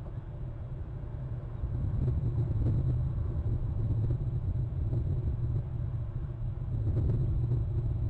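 Low, steady rumble picked up by an outdoor webcam microphone, growing louder about two seconds in.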